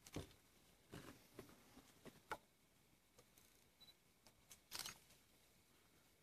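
Near silence broken by a handful of faint, short rustles and clicks, the longest about three-quarters of the way through.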